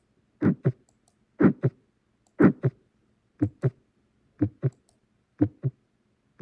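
Recorded heart sounds from a heart murmur example: paired lub-dub beats about once a second, the first sound of each pair longer and louder than the second.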